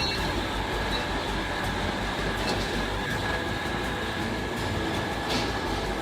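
Steady industrial machinery noise with a faint high whine and a few light clinks.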